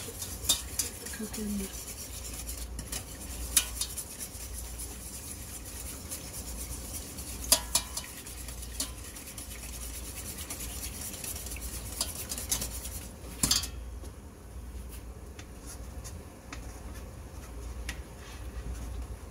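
A metal utensil stirring in stainless steel pots on the stove, scraping and clinking against the pot walls, with a few sharper clanks, over a steady hiss that drops away about two-thirds of the way through.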